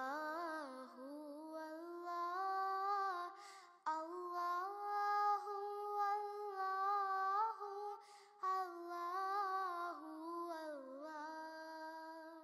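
Background song: a single high voice singing a slow melody with long held notes and gliding ornaments, with no beat or instruments heard, pausing briefly about 4 and 8 seconds in.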